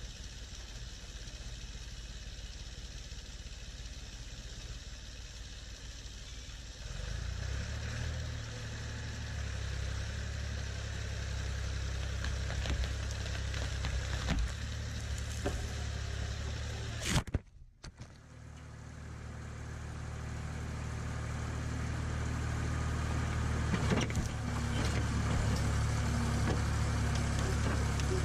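Ford 4500 tractor-backhoe engine running steadily, picking up and getting louder about a quarter of the way in. The sound cuts out sharply for about a second a little past halfway, then returns and builds in loudness.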